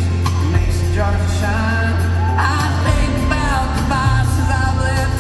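Live country band amplified through an arena sound system: a man sings lead, holding and bending notes from about a second in, over acoustic guitar, drums and a strong steady bass.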